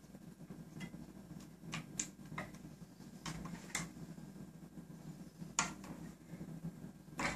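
Faint, scattered clicks and taps of hands handling the plastic and metal parts of the Ubiquiti Rocket M365 radio and omni antenna mount while fitting the cable connectors.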